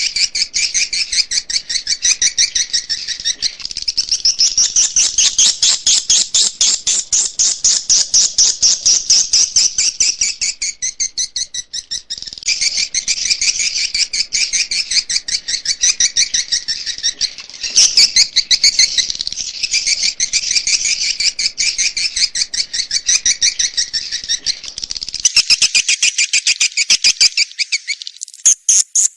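Swiftlet lure call recording: dense, rapid twittering chirps of edible-nest swiftlets, played to draw swiftlets into a bird house. Near the end the chirping gives way to a higher, faster pulsing.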